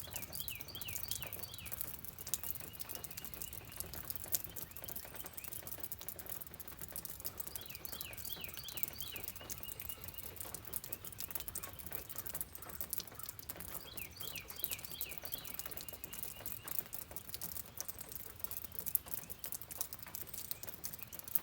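Rain pattering steadily, with a songbird singing the same short phrase three times, about every six or seven seconds: a quick run of falling notes followed by a brief trill.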